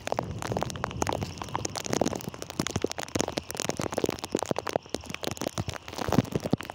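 Heavy rain falling, with dense, irregular taps of drops striking close to the microphone over a steady hiss.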